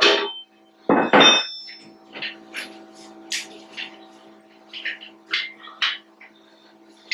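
Metal knocking and clinking from hand-tool work on a machine in a workshop: two loud knocks about a second in, then a scatter of lighter clinks, over a steady low hum.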